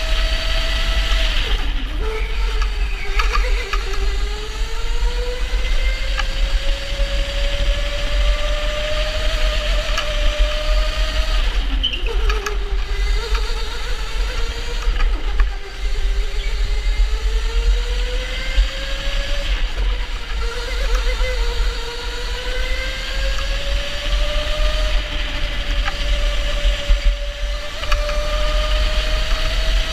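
Electric go-kart motor whining. Its pitch drops sharply as the kart slows into corners, about a second and a half in and again at about twelve and fifteen seconds, then climbs slowly as the kart speeds up out of each corner. A steady low rumble runs underneath.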